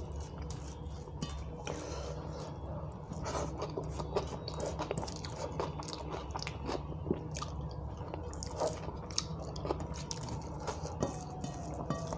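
Close-up eating sounds: a man chewing mouthfuls of dal and rice eaten by hand, with many short wet mouth clicks, and fingers mixing the food on a steel plate, over a steady low hum.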